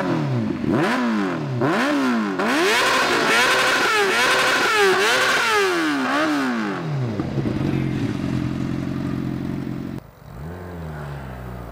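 Yamaha R6 inline-four with an Akrapovic exhaust, revved in a string of quick blips that climb high and fall straight back, then held at a steady high rpm for a few seconds. About ten seconds in it drops to a low, steady idle.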